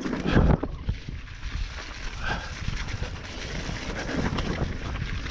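Wind buffeting the microphone over the clatter of a mountain bike moving over a dirt trail, with many short rattles and knocks. There is one strong low gust of wind noise about half a second in.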